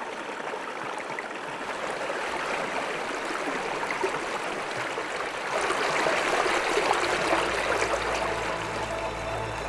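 Small mountain brook flowing and trickling over stones and ice; the rushing gets louder and brighter about five and a half seconds in.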